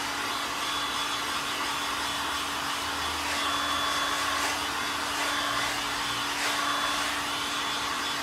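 Corded electric heat gun blowing steadily, a rush of air over a steady low hum, warming a sheet of butyl sound-deadening mat so it will bond in the cold.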